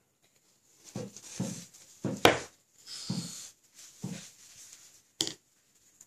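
Small plastic paint pots and a paintbrush handled on a wooden table: a few soft knocks and two sharp clicks, the loudest about two seconds in and another near the end.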